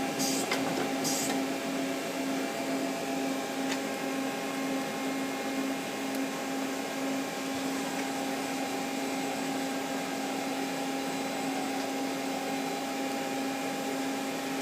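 Nakamura-Tome TMC 15 CNC turning center running, a steady mechanical hum with a fainter higher whine. The ball screws move quietly, a sign of healthy axis drives.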